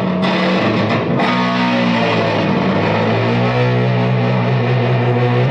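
Electric guitar, a 1967 Fender Stratocaster, played through an original late-1960s Dallas Arbiter Fuzz Face into a Marshall JTM45 valve amp, giving fuzz-distorted chords. The last chord, starting about three seconds in, is held and sustains.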